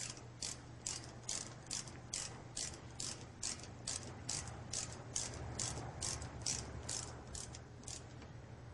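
Socket ratchet wrench clicking in quick, even back-and-forth strokes, about two or three a second, as it tightens the caliper housing bolts; the strokes stop near the end.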